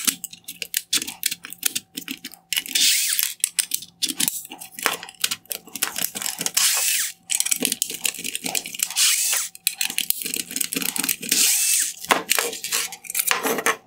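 Torx screwdriver backing T20 screws out of a plastic headlight lens bracket: rapid clicking and rasping in repeated spells of about a second each, with a short pause midway.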